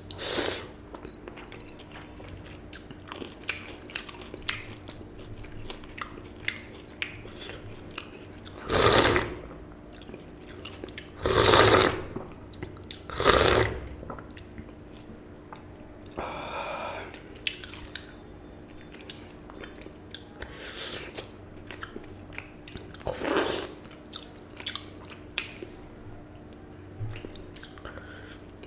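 Close-miked eating sounds of a man eating watered rice (panta bhat) with fried hilsa fish and mashed bhortas by hand: wet chewing, lip smacks and small clicks. There are a few louder, noisy mouthfuls about a second long, three of them between about 9 and 14 seconds in and one more near 23 seconds.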